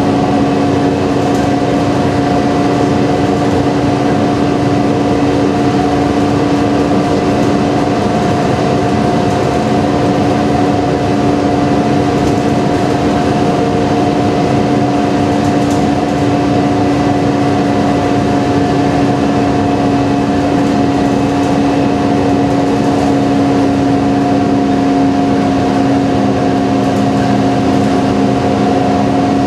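Cabin noise of a moving transit bus: a steady drone with two steady humming tones over road noise.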